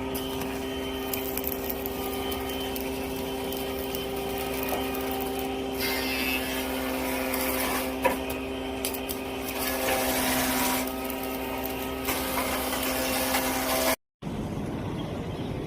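Steady hum of metalworking equipment, with a crackling hiss that comes and goes over it. The sound cuts out abruptly near the end and a different, rougher background follows.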